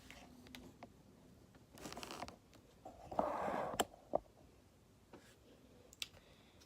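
Handling noises from a camera tripod being adjusted: two short stretches of rustling and scraping, with a few sharp clicks between them.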